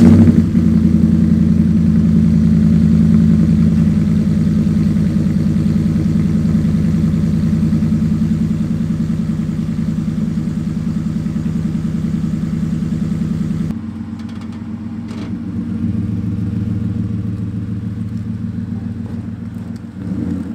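Ford F-150's 5.0-litre V8 through a Magnaflow muffler, resonator still fitted, catching on a cold start with a loud flare, then holding a steady fast idle that slowly eases. About 14 seconds in the sound drops abruptly and turns quieter and more distant as the truck is heard pulling away, swelling briefly a couple of seconds later.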